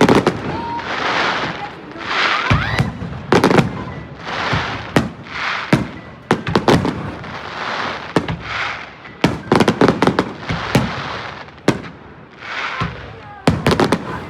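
Fireworks going off in quick succession: a rapid series of sharp bangs mixed with hissing, crackling bursts about every second, with several bangs clustered together in places.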